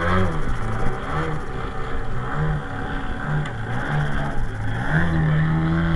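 Remote-control model airplane engine buzzing in flight, its pitch stepping up and down as the throttle and distance change.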